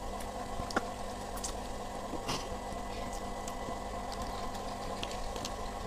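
A few faint clicks and scrapes of a plastic spoon working rice in a cardboard food box, over a steady low hum of room tone.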